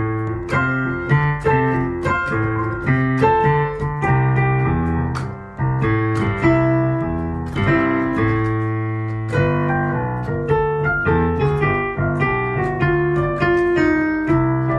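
Piano playing boogie-woogie: a repeating left-hand bass pattern low down, with right-hand chords and notes above it, played continuously.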